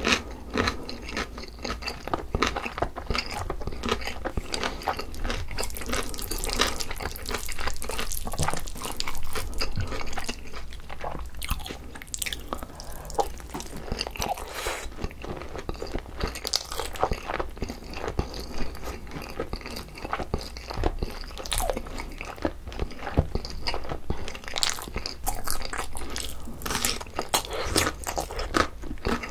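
Close-miked eating sounds: chewing and crunching of chicken fried rice and kimchi, with many short, irregular crunches and clicks.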